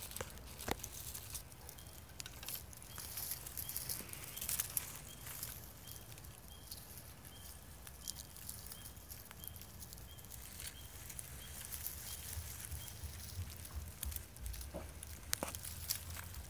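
Faint crackling and rustling in dry leaf litter as two mating milk snakes writhe and slide over it. Through the middle a soft high chirp repeats evenly, about once every three-quarters of a second.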